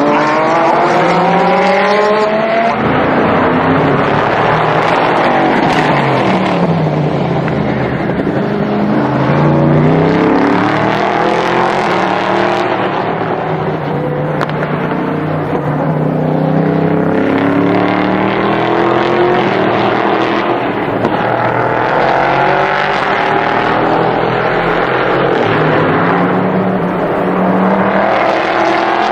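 GT race car engines at full racing speed, several cars one after another. Their notes rise in pitch as they accelerate through the first few seconds, then keep changing pitch as cars come and go.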